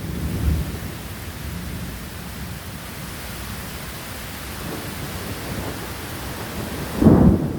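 Heavy rain pouring steadily in a thunderstorm, with low rumbles of thunder. A louder low burst comes about seven seconds in.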